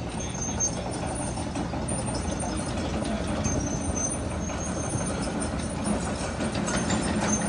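Diesel engines of Cat hydraulic excavators, one a long-reach demolition machine, running steadily as they tear down a timber building. Scattered cracks and crunches come from splintering wood and falling debris.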